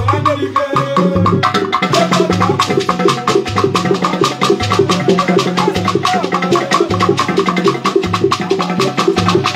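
Lively Igbo Ogene highlife music: fast, dense hand percussion over a repeating low beat.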